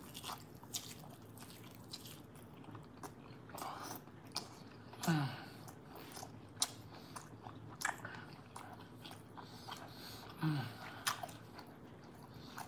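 Close-miked biting and chewing of a seasoned ribeye steak, with wet mouth clicks and smacks throughout. About five and ten seconds in come two brief 'mm' hums of enjoyment that fall in pitch.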